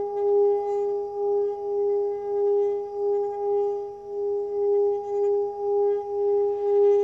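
Singing bowl sounding a sustained tone with several overtones, its loudness swelling and fading in a slow wavering pulse about twice a second.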